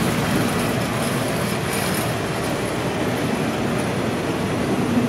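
State Railway of Thailand passenger coaches rolling past on the track: a steady rumble of wheels on the rails.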